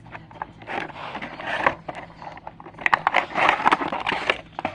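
Scraping, rustling and clicking of a small toy box and its packaging being handled, busiest in the second half.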